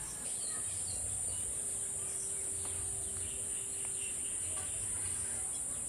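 Steady high-pitched chorus of crickets, with a few faint bird chirps.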